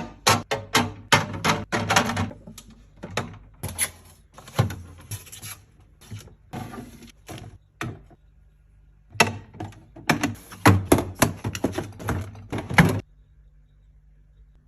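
Busy clatter of packaged drinks and snacks being handled and set down while restocking a fridge: quick taps, clacks and thunks in two runs with a short lull between. Near the end only a low steady hum remains.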